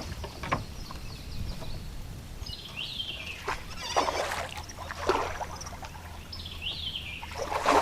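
A bird calling in several quick falling whistled notes, over a steady low hum, with a few short splashy noises from the water.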